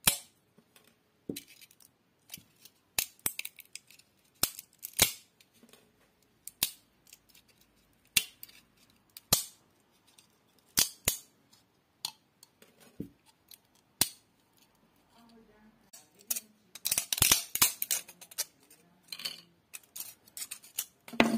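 3D-printed plastic support material being snapped and peeled off a printed figure by hand: sharp, irregular clicks and cracks, with a dense run of crackling late on.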